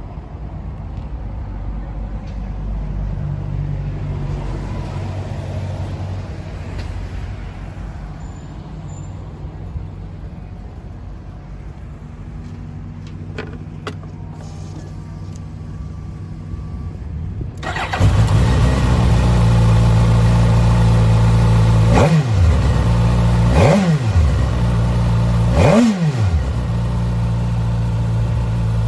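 Suzuki GSX-S1000F's 999 cc inline-four engine starting about two-thirds of the way in and settling into a steady idle. It is then revved three times in quick blips, the pitch rising and falling each time with the last the highest, before it returns to idle.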